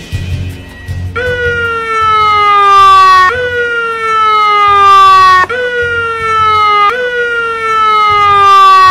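Loud electronic police siren starting about a second in: four falling pitch sweeps, each sliding down for about two seconds and then jumping straight back up to start again.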